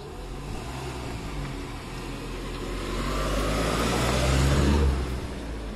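A motor vehicle driving past, growing louder to a peak about four to five seconds in and then dropping away.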